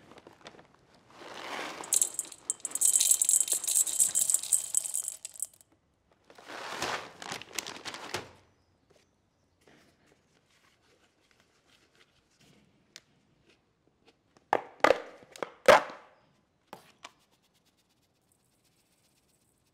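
Hop pellets poured into a stainless steel bowl, rattling against the metal for a few seconds, then a second, shorter pour. A few sharp knocks follow about fifteen seconds in.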